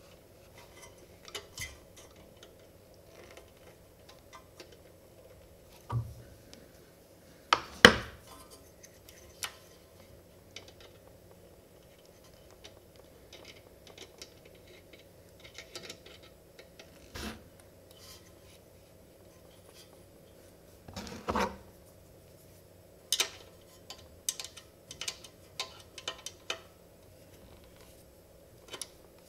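Small hand tools clinking and scraping on the rocker arm and adjuster of a Honda GXC160 engine while the exhaust valve clearance is set with a feeler gauge. Scattered light metal clicks and taps, the loudest about 8 seconds in and again about 21 seconds in, with a run of small clicks shortly after.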